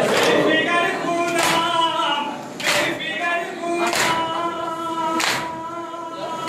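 Mourners' chest-beating (matam), the hand strikes landing together about once every 1.3 seconds, over a sung Muharram noha lament with long held notes.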